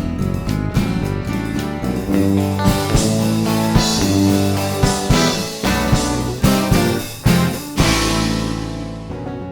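Rock music with guitar and drums; the cymbals thin out near the end.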